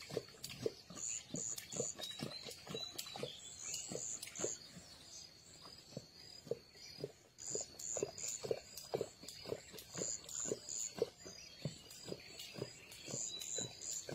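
Asiatic lion lapping water from a trough, a quick run of wet laps and slurps, about two to three a second.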